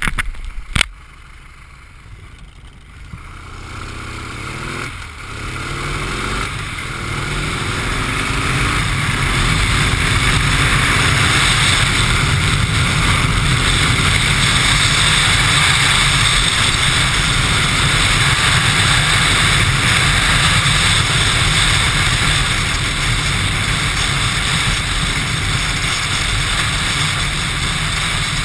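Chopper-style motorcycle pulling away, its engine pitch rising over several seconds with a break or two where it changes gear. It then runs at steady cruising speed, with loud wind rush on the handlebar-mounted microphone. A single sharp knock comes just under a second in.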